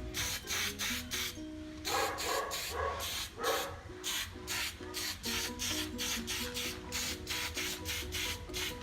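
Aerosol spray-paint can hissing in rapid short bursts, over background music.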